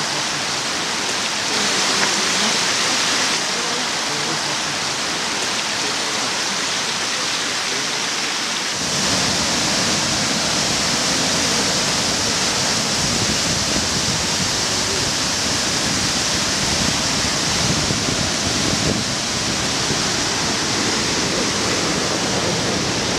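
Steady rushing noise of rain and running water. About nine seconds in it turns suddenly fuller and deeper.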